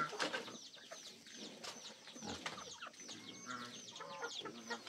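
Chickens clucking and calling, with many short high falling calls repeating throughout.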